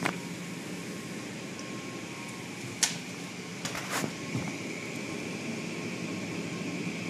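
Automatic car wash running: a steady whirring of the wash machinery and spray, heard from inside the car, with a few sharp slaps as the cloth wash curtains hit the car, the loudest about 3 seconds in and another about a second later.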